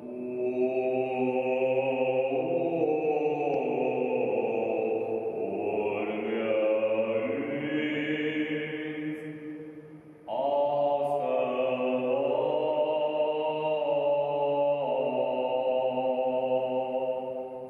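A man's voice singing an Armenian sacred chant solo in long held notes that step slowly from pitch to pitch, in two phrases with a short break for breath about ten seconds in.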